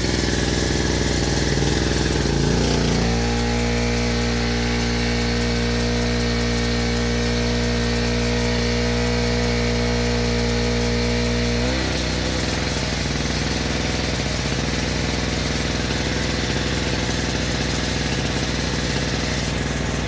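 Small two-stroke portable generator engine running steadily. About three seconds in, as the refrigerator is plugged in and starts drawing power, its note changes to a steadier, more strongly pitched hum, which eases back to the earlier sound about twelve seconds in.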